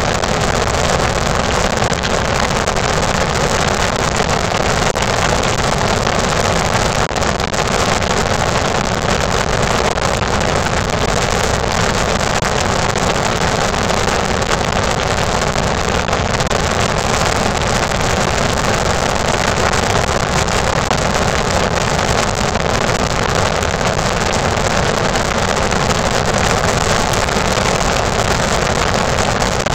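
Steady road and wind noise of a car moving at highway speed, an even rush that does not change.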